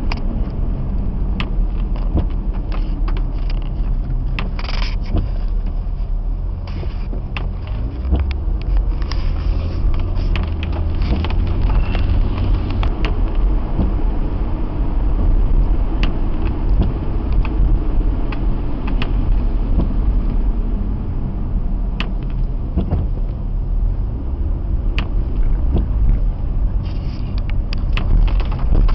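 Car driving, heard from inside the cabin: steady engine and road rumble, with scattered short clicks and knocks.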